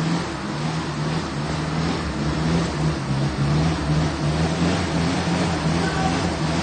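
Off-road 4x4's engine working under load on a steep muddy climb, its note swelling and falling about twice a second.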